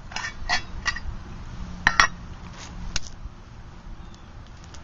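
Metal cooking pot clinking and clanking as it is handled, about six light knocks with a short ring in the first three seconds, the loudest about two seconds in.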